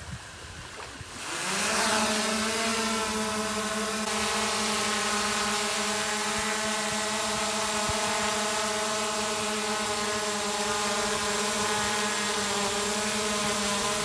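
DJI Mavic Air 2 quadcopter's motors starting about a second in and spinning up quickly, then a steady propeller buzz with a whine as the drone hovers close by.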